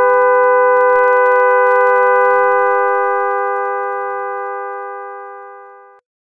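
Experimental electronic music: a cluster of several steady tones held together, with scattered faint clicks, fading out over the last few seconds and stopping about six seconds in.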